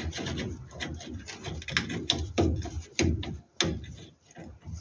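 Irregular clicks, knocks and scrapes of a sway bar bush clamp's nut and bolt being worked by hand under a car.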